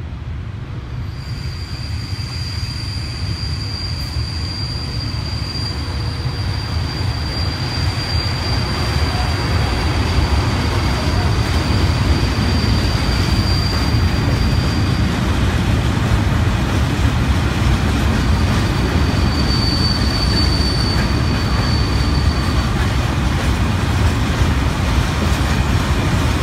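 Freight train of hopper wagons rolling past on the rails: a steady rumble of wheels on track that grows louder over the first ten seconds or so, then holds as the wagons pass close by. A thin, high wheel squeal runs over it for much of the first half and returns briefly later.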